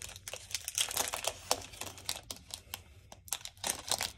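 Foil trading-card pack wrapper crinkling and tearing as it is ripped open by hand. It is a quick, irregular run of crackles, louder in a burst about a second and a half in and again near the end.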